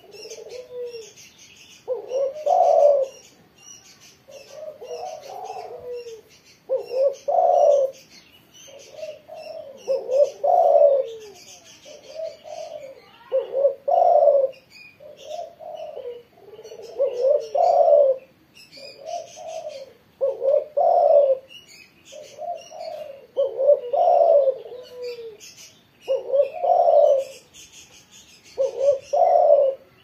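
Spotted dove (tekukur) cooing over and over, one phrase every two to three seconds: the bird calling freely, 'gacor'. Other small birds chirp faintly behind it.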